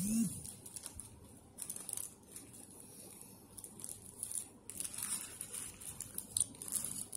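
Foil-lined paper burger wrapper being crinkled and folded back by hand in irregular crackly bursts as the burger is unwrapped.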